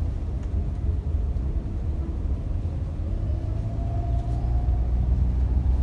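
Steady low engine and road rumble of a 2010 Daihatsu Xenia Xi automatic driving slowly, heard from inside the cabin, with a faint whine midway.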